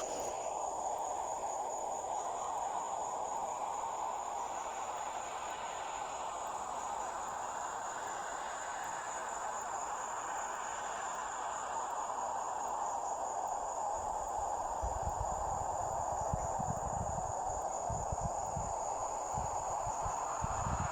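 Crickets trilling in one steady, unbroken high note over a steady rushing hiss. From about two-thirds of the way through, irregular low rumbles come in underneath.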